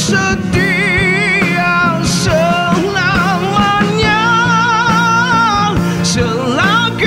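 Male vocalist singing a sustained, wavering melody with heavy vibrato over a live rock band accompaniment.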